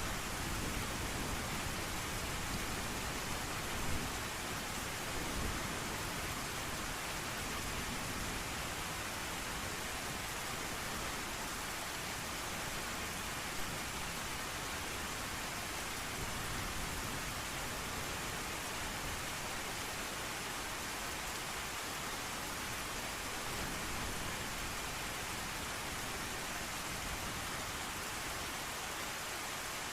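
Steady heavy rain hissing evenly, with a low rumble of distant thunder in the first few seconds.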